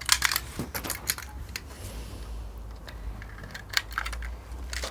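A few scattered sharp clicks and crackles, a cluster near the start and more near the end, over a steady low rumble.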